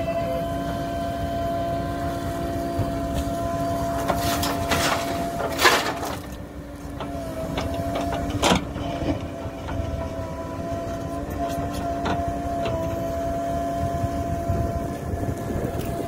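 JCB 3DX backhoe loader's diesel engine running steadily with a constant hum while the backhoe digs and loads murum. A few short knocks and rushes of noise from the bucket and soil break in, the loudest about six seconds in.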